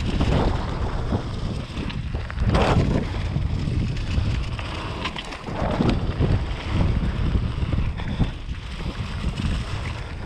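Wind rushing over a GoPro action camera's microphone on a mountain bike riding down a dirt trail, surging louder every second or two, mixed with tyre rumble and short knocks from the bike over the ground.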